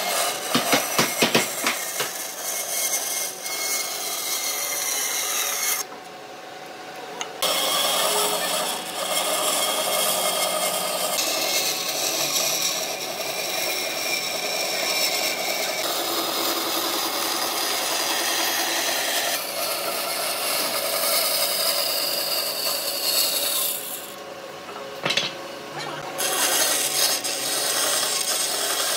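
Band saw cutting a thick wooden board along a curved line: a steady rasping hiss of the blade running through the wood. It drops away twice for a second or two, about 6 s and about 24 s in.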